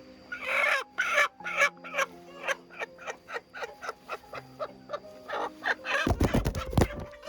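Domestic chickens clucking in a rapid run of short calls, a few a second, with a louder flurry of calls near the end, over background music.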